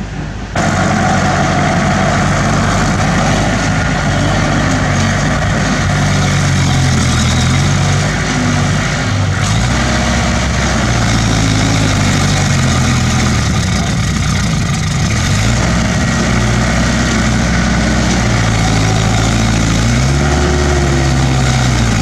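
Crawler bulldozer's diesel engine running close by, its pitch rising and falling again and again as the revs change. It cuts in sharply about half a second in.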